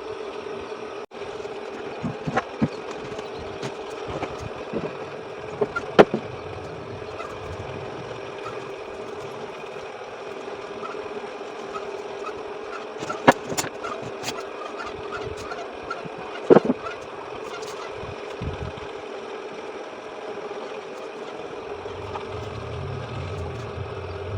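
Scattered clicks and knocks of parts and tools being handled over a steady hum, with a low rumble coming in near the end.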